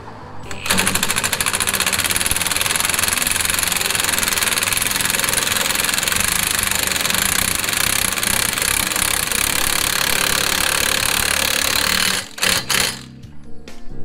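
Cordless impact wrench hammering steadily for about eleven seconds as it drives the screw of a bearing press tool, pressing the hub into a new front wheel bearing. It stops about twelve seconds in, followed by one short burst.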